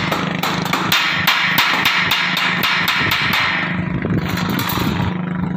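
Arc welding on the bridge's steel deck: the electrode arc crackles and sputters steadily, then thins to scattered crackles about three and a half seconds in, over a steady low hum.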